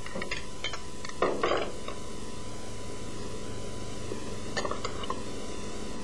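A spoon clinking and tapping against a small bowl and a metal serving platter as orange segments are lifted out and set down: a few light clinks, the loudest cluster about a second in and a few more near the end. A steady hiss with a faint high hum runs underneath.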